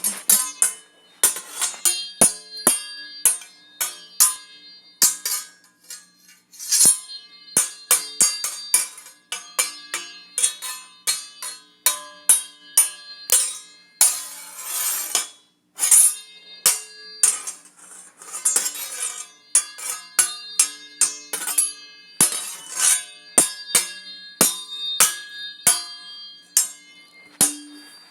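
Sword fight sound effects: steel blades clashing again and again, one to three strikes a second, each clang ringing briefly. There is one longer swish about halfway through.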